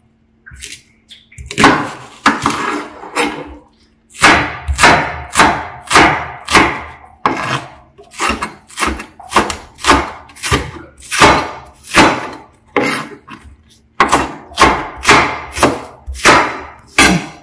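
Kitchen knife slicing a green onion on the diagonal against a plastic cutting board: a steady run of sharp chopping strokes, about two a second, with a brief pause about three and a half seconds in.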